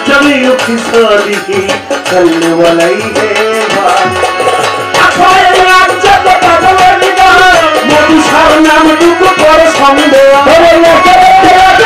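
A Bengali Sufi devotional song performed live: a man singing to tabla and melodic accompaniment. From about five seconds in, long notes are held.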